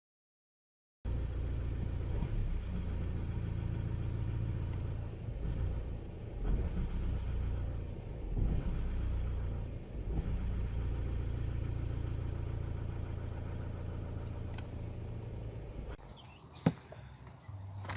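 Opel Vectra C engine idling, its level swelling and dipping a few times around the middle: an uneven idle of the kind put down to a faulty throttle body potentiometer. It starts about a second in and drops off near the end, followed by a sharp click.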